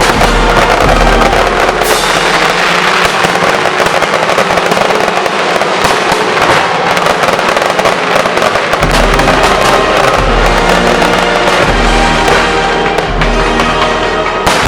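Aerial fireworks bursting and crackling in rapid, continuous succession, over music with a pulsing bass line that comes in about nine seconds in.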